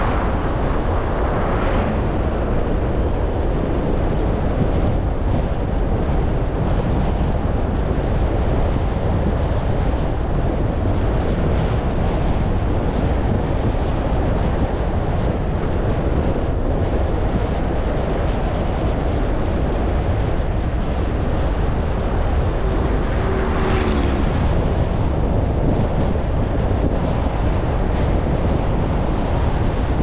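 A car driving, heard as steady, low road and wind noise from the tyres and airflow. There is a brief brighter swell about two seconds in and again around 23 seconds in.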